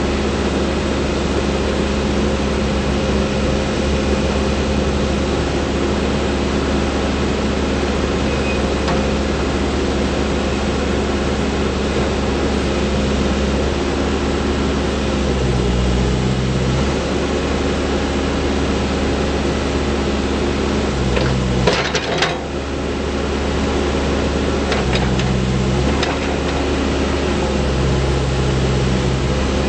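Case 580N backhoe loader's diesel engine running steadily, its note dropping and changing briefly three times as it is loaded, with a few clanks about 22 seconds in.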